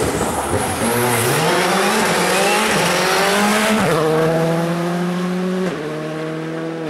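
Škoda Fabia rally car's turbocharged four-cylinder engine accelerating hard through a corner. Its note climbs steadily, drops sharply at a gear change about four seconds in and holds high, then steps down lower near the end as the car pulls away.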